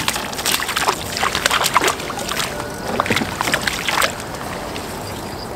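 Water splashing irregularly as a freshly hooked crucian carp thrashes at the surface while it is reeled in. The splashing stops about four seconds in.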